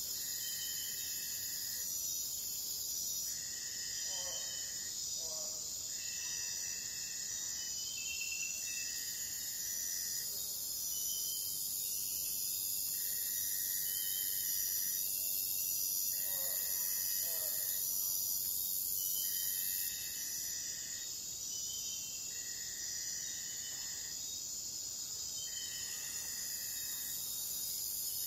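Night chorus of crickets and other insects in the Amazon rainforest: a steady high-pitched shrill, with a mid-pitched buzzing note that lasts a second or two and repeats about every three seconds. Faint lower calls come in twice.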